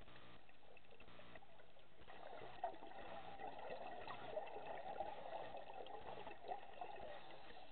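A scuba diver's exhaled bubbles gurgling and crackling out of a regulator, starting about two seconds in and lasting some five seconds, over a steady underwater hiss.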